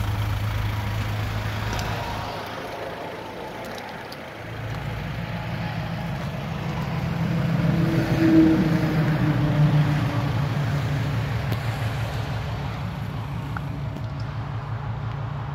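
Volkswagen Touran's 1.9 TDI four-cylinder turbodiesel idling with a low, even hum. It fades a little a few seconds in, then grows louder again from about halfway and holds steady.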